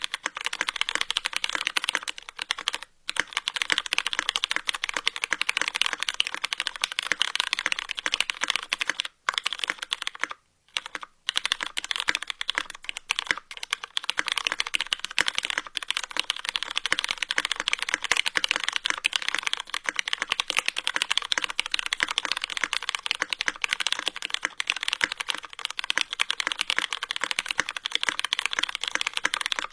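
Fast, aggressive keyboard typing: a dense, continuous stream of key clicks, broken by a few short pauses about 3, 9 and 11 seconds in.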